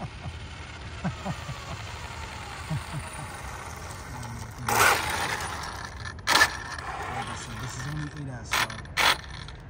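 Electric Arrma Limitless RC car driving on asphalt: its brushless motor and drivetrain whine as it passes close by about five seconds in, loudest as it goes past, followed by short sharp bursts of throttle noise as it drives off.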